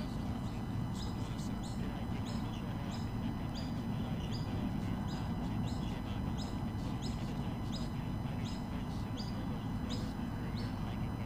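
A bird chirping: short, high notes that each slide downward, repeated about twice a second, over a steady low rumble.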